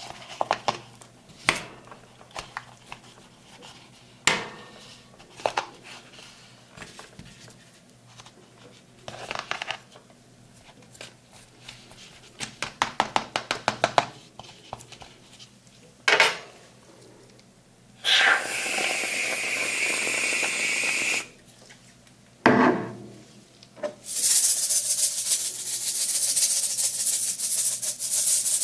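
Metal spatulas on a rolled-ice-cream cold plate: scattered taps and clinks, then long scraping strokes across the frozen surface, the loudest and longest near the end.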